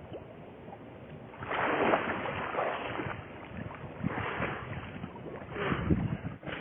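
Splashing in icy open water as a man swims and climbs out at the ice edge, coming in three surges.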